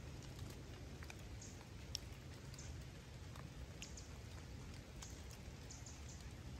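Light rain falling, heard as scattered, irregular drip and patter ticks over a faint low steady rumble.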